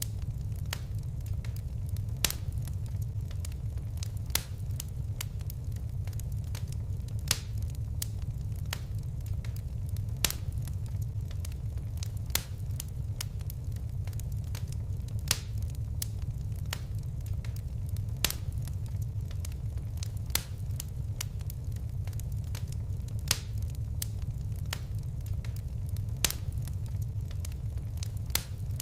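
Wood fire burning with a steady low rumble and sharp, irregular crackles and pops, roughly one every second or two.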